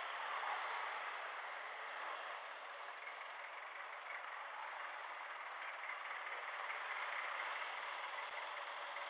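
Steady, even traffic and road noise heard while riding a scooter slowly through congested traffic, with no distinct events.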